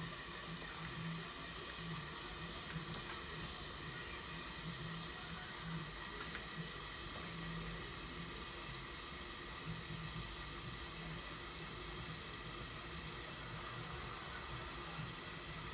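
Chicken sizzling and steaming in a covered frying pan, a steady even hiss.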